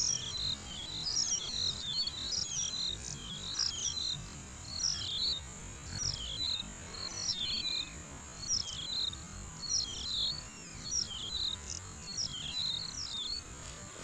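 A bird repeating a short, high chirping phrase about once a second over a low outdoor rumble. The phrases stop shortly before the end.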